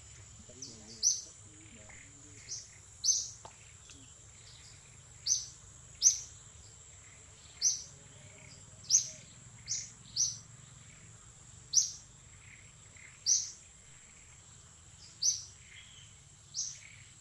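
A bird repeating short, sharp high chirps, roughly one a second at uneven spacing, over a steady high-pitched insect drone.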